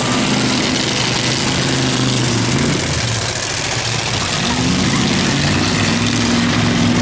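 Several demolition derby cars' engines running and revving, their pitch rising and falling, under a steady rush of noise.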